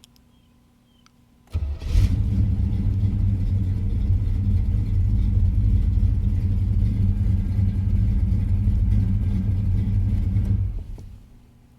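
1985 Chevrolet Monte Carlo SS's V8 starts with a brief crank about a second and a half in, runs steadily for about nine seconds, then is shut off and dies away near the end. Two faint clicks come before it.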